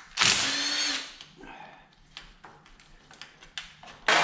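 Cordless power tool with a socket extension spinning a bolt on the engine case: one run of about a second near the start, light clicking and handling after it, and a second run starting near the end.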